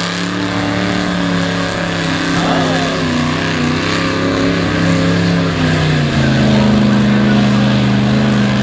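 Lifted Chevrolet S10 mud truck's engine revving under load as it drives through a mud pit. The engine note wavers up and down, then settles into a steadier, louder note about six seconds in.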